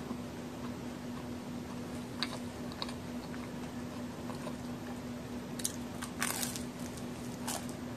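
Crisp bites and crunches of a large homemade chocolate and raisin cookie being eaten, a few faint crackles first, then several sharp crunches in the second half, loudest about six seconds in.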